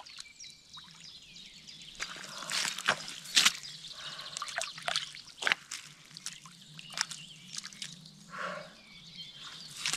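A hooked fish splashing and thrashing in shallow water as it is reeled in and dragged to the bank, with irregular sharp splashes and drips.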